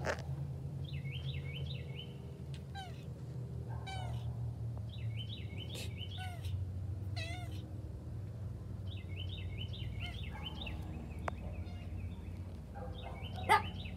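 Domestic tabby cat meowing several times in short calls that fall in pitch, with a short louder sound near the end.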